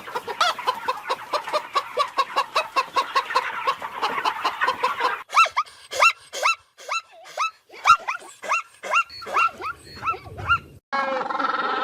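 Domestic fowl calling. Rapid overlapping calls give way to a string of separate short calls, two or three a second, and the sound changes abruptly to something else near the end.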